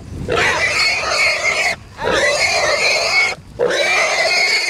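A hog caught by catch dogs squealing in distress: three long, drawn-out squeals with short breaks for breath between them.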